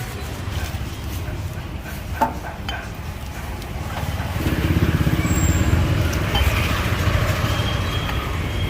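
Traffic going by: a vehicle engine rumbling low, growing louder about four and a half seconds in as it comes close, with a single light clink about two seconds in.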